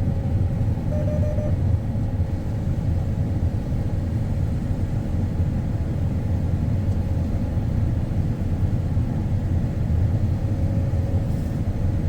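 Combine harvester running steadily during unloading, a continuous low rumble with a faint steady whine above it.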